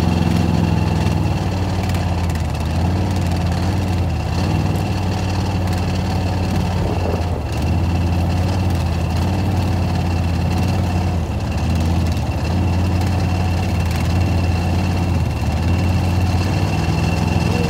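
ATV engine running steadily at low speed, a low even hum.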